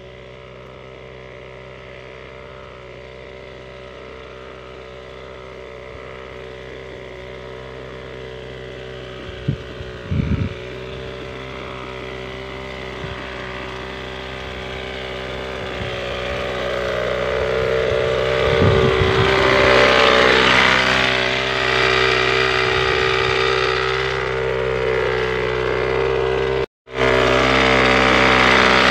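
Backpack motorized crop sprayer's small engine running steadily, with the hiss of the spray mist. It grows louder as the sprayer comes close, drops out for a moment near the end, then resumes close up.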